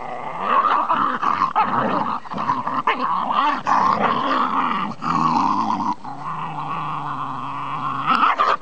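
A Welsh Terrier and a Staffordshire terrier growling almost without a break as they wrestle, with a long steady low growl near the end.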